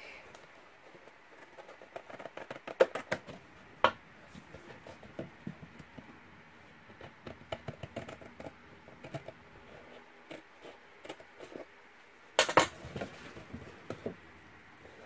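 Kraft cardstock being handled and cut at a craft table: light rustling and scraping of card with scattered sharp clicks, a run of them about three seconds in and a louder clatter near the end.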